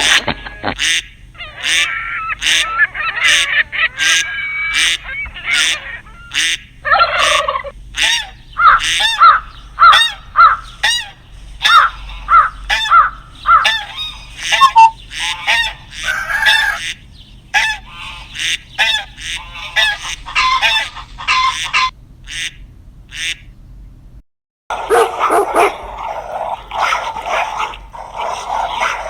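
Birds calling over and over in quick, repeated honking calls. After a brief break near the end, a dog starts barking.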